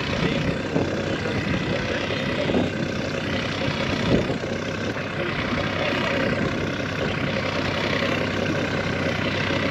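Boat outboard motor idling steadily.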